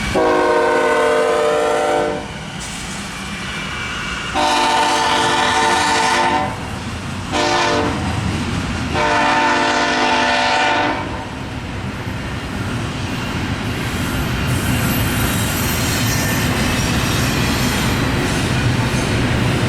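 Diesel locomotive horn on a BNSF-led freight train sounding the grade-crossing signal: two long blasts, one short and one long. After that comes the steady, slowly growing rumble of the locomotives and cars drawing near.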